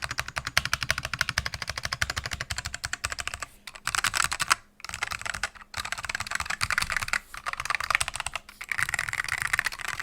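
Fast, continuous typing on a custom mechanical keyboard with linearized, relubed black Alps switches on an FR4 plate and thick keycaps: a dense run of keystroke clicks with a few short pauses.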